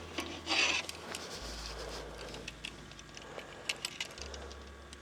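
Fishing tackle being handled while a line is re-rigged: a short rustle or scrape just under a second in, then a scatter of small sharp metallic clicks.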